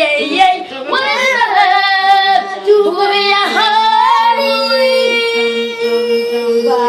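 Children singing, their voices sliding up and down, then holding one long note from about halfway through.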